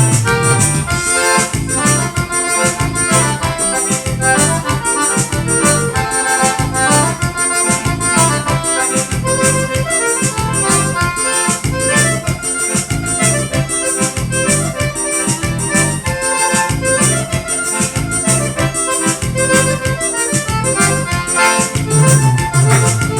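Forró band playing a vaneirão live: accordion and keyboard carry the tune over bass and a steady, even beat.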